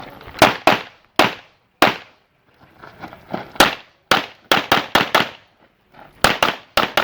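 Pistol gunfire: about a dozen sharp shots in uneven groups, some spaced out and others in quick strings of several shots well under a second apart.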